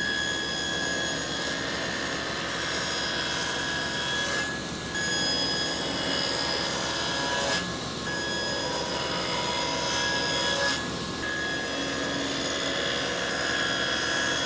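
Table saw running with a steady motor whine while its blade cuts through the sides of a glued-up cherry box to separate the lid. The cutting noise eases briefly three times as the box is turned to the next side.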